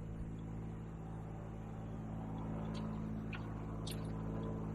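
A steady low mechanical hum, engine-like, with a few faint light ticks in the second half.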